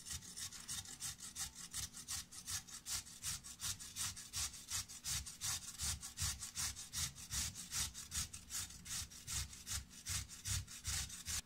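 Carrot being grated by hand on a stainless steel grater: a steady run of rasping strokes, about four a second.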